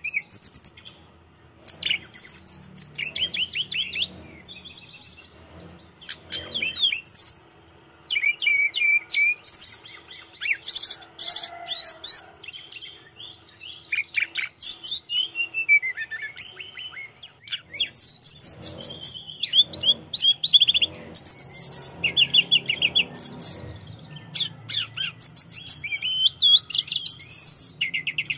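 Caged tledekan gunung, a blue-backed, orange-breasted songbird, singing hard. Its song comes in bursts of fast, high chirps and trills separated by short pauses, with a run of falling whistled notes about halfway through.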